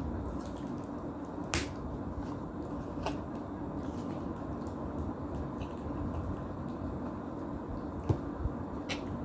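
A person eating instant noodles: chewing and wet mouth sounds over a steady background hiss, with a few sharp clicks, the loudest about eight seconds in.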